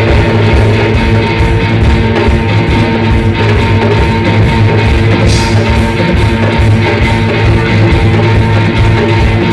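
Live rock band playing loud: electric guitar and bass guitar over a steady pulsing drum beat.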